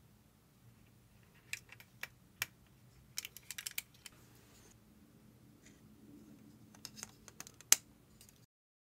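Small plastic action-figure parts clicking and tapping as they are handled and fitted together: scattered clicks, a quick cluster about three to four seconds in and the sharpest click near the end.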